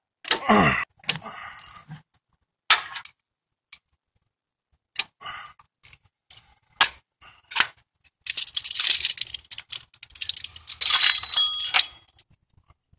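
Metal-on-metal handling at an engine pulley: a short scrape at the start, scattered single clicks, then a few seconds of jangling clatter near the end as the chain of a chain strap wrench is unwrapped from the pulley.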